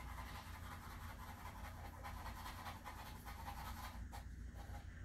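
Pencil sketching on paper, faint, in many short repeated strokes, with a steady low hum underneath.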